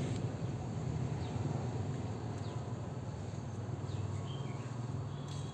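Outdoor ambience: a steady low hum with a few short, faint bird chirps and insect calls over it.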